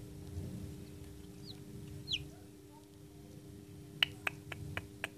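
A hatching chick peeping faintly from inside a pipped egg, two short high peeps falling in pitch, over a steady low hum. About four seconds in comes a quick run of sharp taps, the loudest sound.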